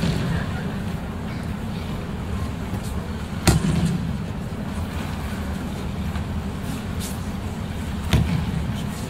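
Aikido partners taking falls on tatami mats: three sharp slaps of a body hitting the mat, one at the start, the loudest about halfway through and one near the end, over a steady low background rumble.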